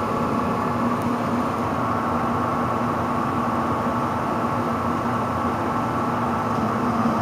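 Furnace blower motor running with a steady hum and a higher whine. This is the sound of a failing blower, which the installer calls a very bad blower.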